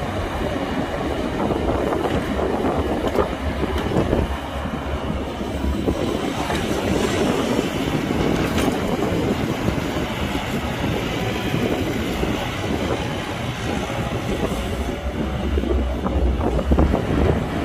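Caterpillar hydraulic excavator working: diesel engine running steadily under load, with an irregular metallic clatter over it.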